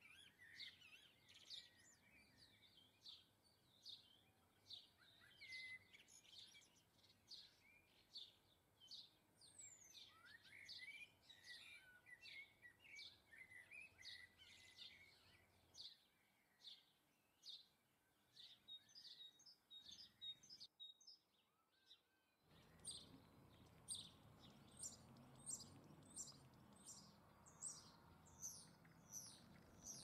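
Small garden songbirds chirping and twittering in quick runs of short high notes, with a brief lull about two-thirds of the way through.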